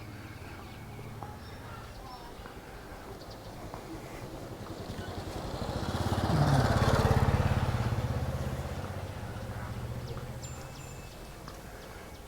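A motorbike passes close by, its engine rising to a peak about halfway through and then fading away, with a short drop in pitch as it goes past.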